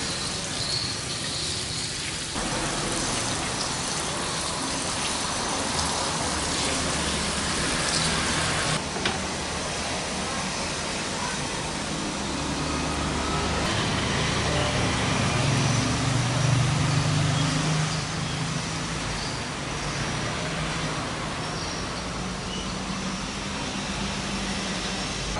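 Slices of tempeh deep-frying in hot oil in a nonstick pan, a steady sizzle, with a low hum underneath.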